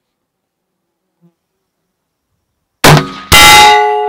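A 6.5-284 rifle shot and its bullet striking a hanging steel plate target: two sharp cracks about half a second apart near the end. The second sets the steel ringing in a clear, many-toned ring that slowly fades.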